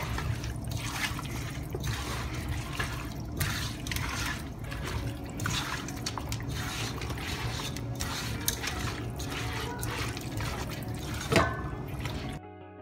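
Hand squishing and turning raw chicken pieces in a wet, oily herb-and-spice marinade in a metal pot, making irregular wet squelches. There is one sharper knock near the end, then the sound cuts off.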